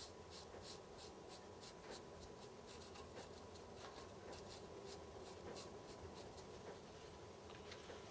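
Felt-tip marker scratching in short strokes on cast aluminium, about three faint strokes a second. The surface is being blacked out so that filing will show up on it.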